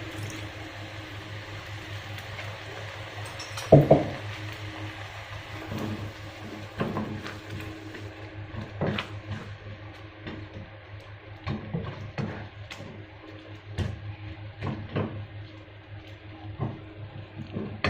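A spatula stirring and scraping chili paste in a cooking pan, with many short scrapes and clinks and one louder clank about four seconds in, over a steady low hum.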